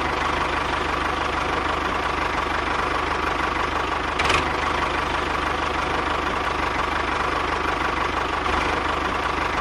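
Small motor of a DIY miniature tractor running steadily at an even speed, with a fast low pulse and a single short click about four seconds in.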